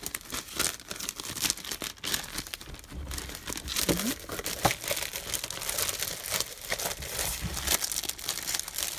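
Clear plastic packaging bag crinkling and rustling in the hands as sheets of thick scrapbooking paper are tugged out of it. The bag is tight and holds the paper fast.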